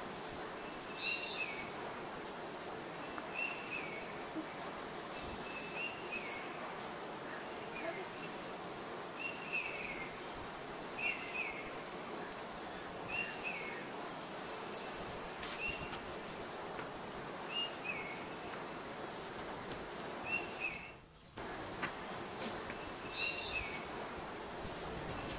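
Birds chirping over and over outdoors, short calls every second or two, over a steady background hiss.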